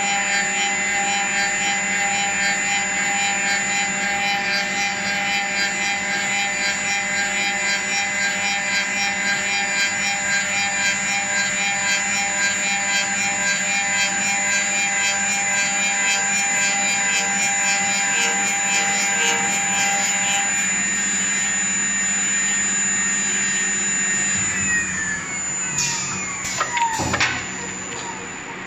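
CNC wood-turning lathe shaping a paint-brush handle: the high-pitched whine of its cutting spindle with the noise of wood being cut, steady with a slight pulsing. Near the end the spindle winds down, its whine falling in pitch, with a few clacks.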